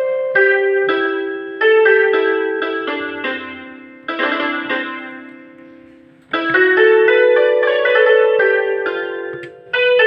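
Rockster RS41IN electronic keyboard playing a melody on a piano-like preset voice, each note struck and decaying. Around the middle a chord is left to die away for about two seconds before a fresh phrase of notes begins.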